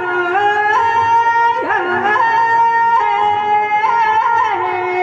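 Instrumental music: a melody of long held notes that step up and down in pitch, several notes sounding together, with no drumbeat.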